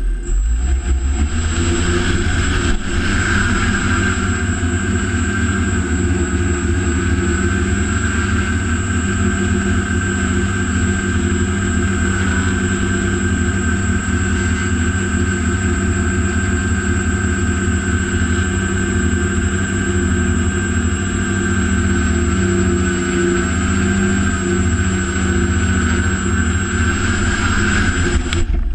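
Heavy-lift quadcopter's electric motors and propellers running through a flight, heard from the camera on its own frame: a steady whine over a low rumble. The sound stops abruptly near the end.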